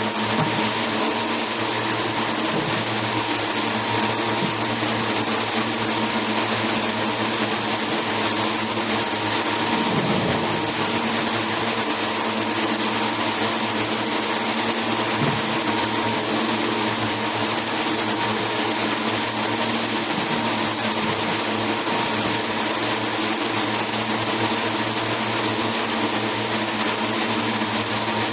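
A long frame of yarn-winding machines in a textile mill running: a loud, steady machine hiss and hum with several constant tones in it, unchanging throughout.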